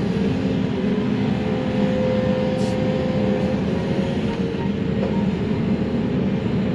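Excavator's diesel engine running steadily under hydraulic load, with a steady hydraulic whine, heard from inside the cab while the grapple swings a load of brush.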